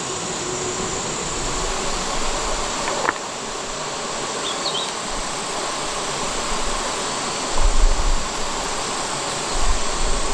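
Steady drone of insects buzzing, with a few short high bird chirps. Low thumps of handling noise come about eight seconds in and again near the end.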